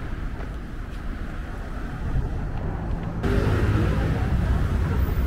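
Steady low rumble of outdoor city ambience, suddenly louder about three seconds in, with faint voices after that.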